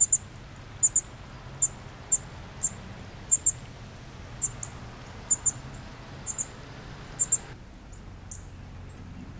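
Northern cardinal chip notes: short, sharp, very high chips, single or in quick pairs, about one or two a second, becoming fainter and sparser near the end.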